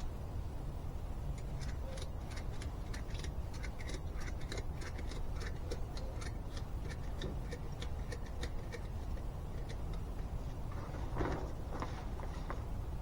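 Ratchet strap being worked, giving a run of sharp, uneven clicks, with a louder rustle of handling near the end. A steady low rumble lies under it.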